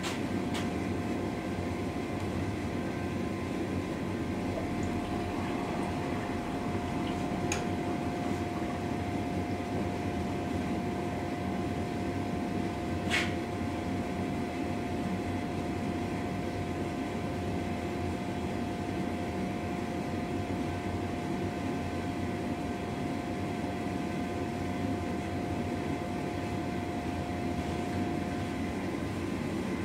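Propane gas forge running with a steady rushing noise while a steel blade heats inside. A steady whine joins in about four seconds in, and there are a few light clicks, the sharpest about thirteen seconds in.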